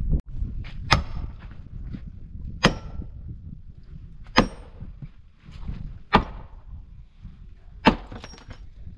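Axe chopping wood on bare ground: five sharp chops spaced about a second and a half to two seconds apart, over a steady low rumble.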